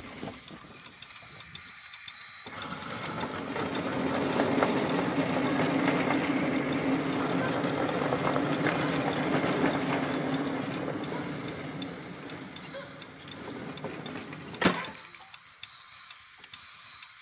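7¼-inch gauge live-steam model of an SNCB Type 5 steam locomotive running along its track: a steady, noisy sound that builds up a couple of seconds in, is loudest through the middle and fades again, with a single sharp knock about 15 seconds in.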